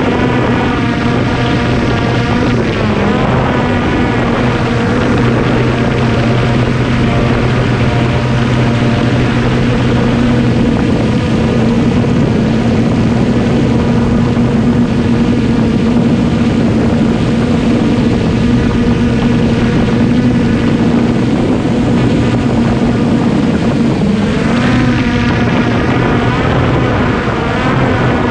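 Traxxas Aton quadcopter's propellers and motors whining steadily, heard close from the camera on the drone itself; the pitch wavers briefly near the start and again near the end as the drone manoeuvres.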